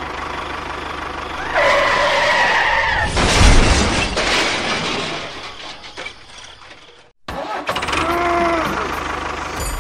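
Tractor engine running with a steady low rumble, swelling loudest about three seconds in, cutting out abruptly near seven seconds and starting again. Twice a pitched tone sounds over it, the second one arching up and down.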